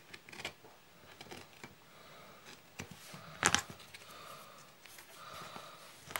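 Soft scraping and light clicks of a utility knife trimming leather on a plastic cutting mat, with one sharp knock about halfway through as the metal knife is set down on the mat.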